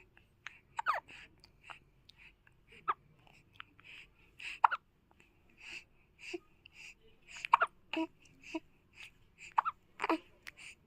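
A small child hiccupping over and over, short sharp hiccups about two a second, several with a brief squeaky cry caught in them.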